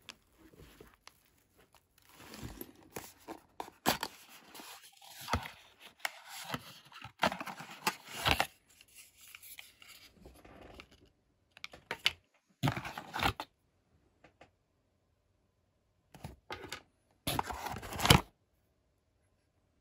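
Hands handling a fabric drone shoulder bag and cardboard packaging: irregular bursts of rustling and scraping, dense in the first half, then a few separate short bursts, the loudest near the end as the box is moved.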